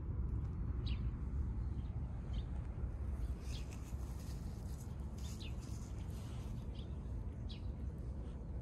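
Small birds calling: about half a dozen short, high notes, each dropping quickly in pitch, spaced a second or so apart, over a steady low outdoor rumble.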